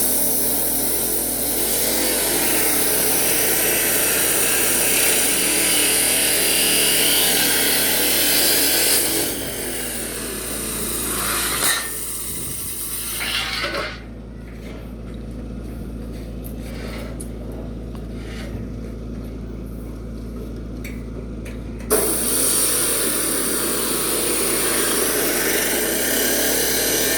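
A power tool running in long stretches: it runs steadily for about nine seconds and drops away. After a quieter spell with scattered clicks and knocks, it starts up again sharply near the end.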